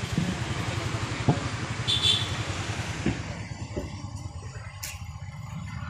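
Car engine running at low revs as the car creeps forward slowly, a steady low pulsing rumble, with road and traffic hiss that eases about three seconds in.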